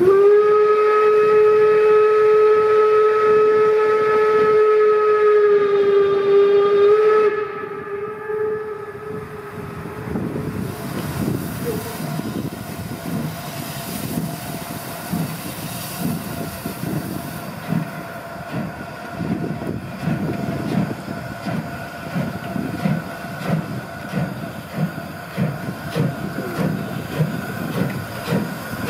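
Steam whistle of DR class 35.10 steam locomotive 35 1097 giving one long blast of about seven seconds, its pitch sagging slightly just before it stops. Then the two-cylinder locomotive's exhaust beats and steam hiss as it pulls its train away.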